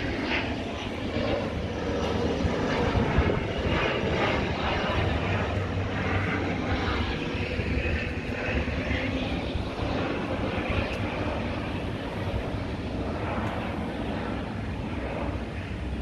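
Aircraft engine noise from a plane passing overhead: a steady rumble that swells over the first few seconds and slowly fades away.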